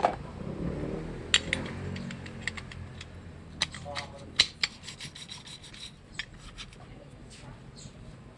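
Light metallic clicks, clinks and rubbing of a motorcycle clutch pack's steel plates and friction linings being handled and fitted into the clutch housing, with a quick run of clicks about halfway through.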